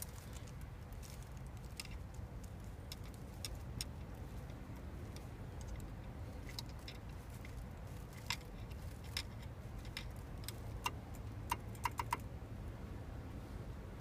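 Small parts being handled while working on a steering wheel's horn contact: scattered light clicks and ticks, several in quick succession near the end, over a steady low background rumble.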